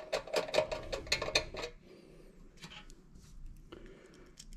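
Hand screwdriver turning a screw into the sheet-metal housing of a bathroom fan heater: a quick run of small metallic clicks and scrapes for about the first second and a half, then a few scattered clicks.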